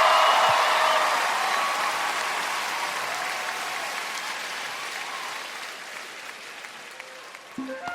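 Concert crowd cheering and applauding, fading steadily. A music beat comes in just before the end.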